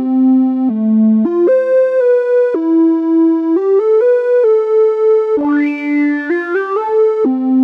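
UVI WaveRunner 360 wavetable synthesizer sounds playing a melodic line of stepped notes, some quick and some held for about a second. Around six seconds in, the tone briefly brightens with a rising sweep.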